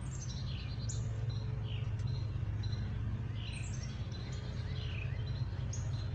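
Birds chirping: several short calls that slide down in pitch, over a steady low hum.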